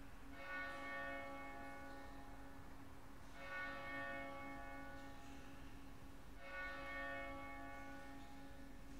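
A single church bell tolling, one stroke about every three seconds, each stroke ringing on and fading before the next.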